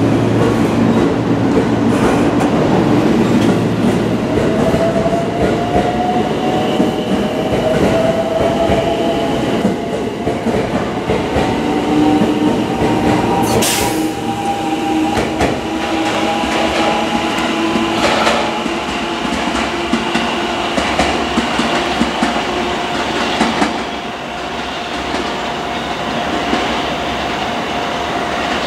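Marine Liner rapid electric train pulling out of a station. Its motor whine rises in pitch as it gathers speed, then holds steady over the rumble of the wheels, with a few sharp clacks from the rails.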